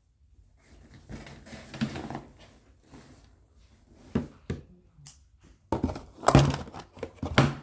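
Toy packaging being handled and pulled open: crinkling plastic and cardboard with a few sharp clicks and thunks, growing louder and busier near the end.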